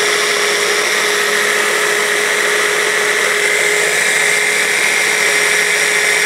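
A small hand blender's motor runs steadily on its mini chopper bowl, blending parsley and walnut pesto with oil. It is loud, with one constant pitch that does not change.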